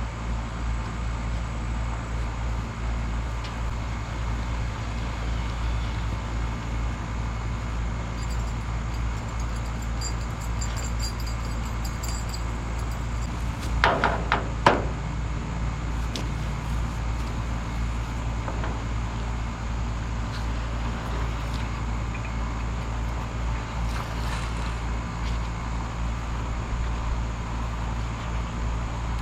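A steady, low mechanical hum, with two brief sharp knocks about halfway through.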